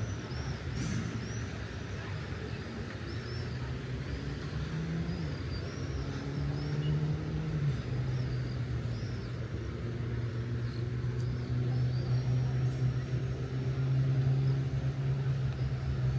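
A motor vehicle's engine running close by with a steady low hum. Its pitch steps up for a couple of seconds midway, then drops back, and the engine gets louder toward the end. Short high chirps repeat over it.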